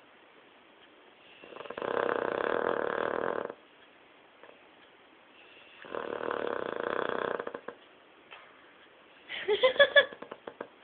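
Dog snoring in its sleep: two long snores of about two seconds each, some four seconds apart. Near the end comes a short burst of pitched sounds, the loudest moment.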